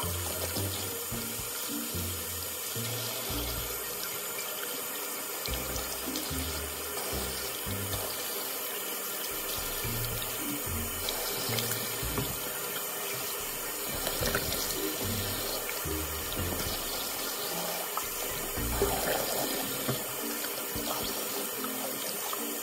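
Water running steadily from a tap into a sink, with background music playing under it.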